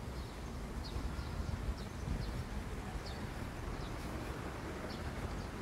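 Small birds chirping in short, high notes, repeated every second or so, over a steady low rumble of wind and traffic.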